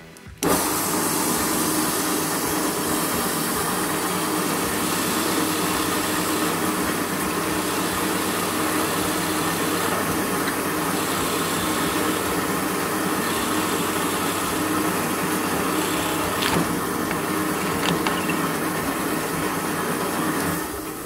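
Bench drill press running steadily, a Forstner bit boring a hole through a block of grenadilla wood. Two brief sharp clicks come in the last few seconds.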